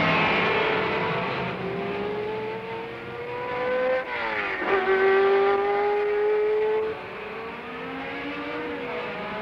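Racing car engines at high revs as cars pass at speed, the pitch climbing under acceleration. About four seconds in a sharp pitch drop marks one car going close by, followed by a steady high engine note, then another car's note rising and falling near the end.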